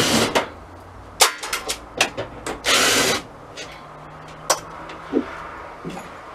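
Cordless drill-driver runs in a short burst against a screw in a metal bus ceiling panel, followed by a scatter of clicks and knocks and a second loud burst of noise about three seconds in.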